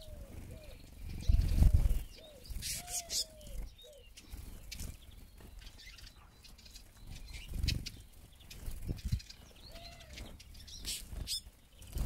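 Eurasian siskins' wings fluttering close by as they land at and take off from a seed feeder, in several short flurries, the loudest about a second and a half in, with scattered high chirps and a few short arched calls.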